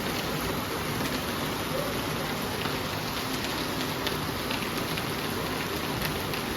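Steady rain falling: a dense, even hiss with scattered individual drops ticking through it.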